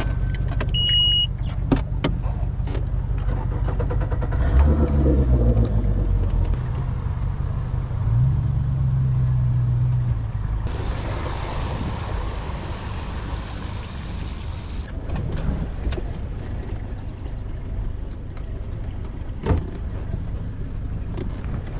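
Outboard motor of a Tracker fishing boat running at idle, revving up briefly around five seconds in and again around eight to ten seconds in. A short electronic beep sounds about a second in, and a few seconds of hiss come in the middle.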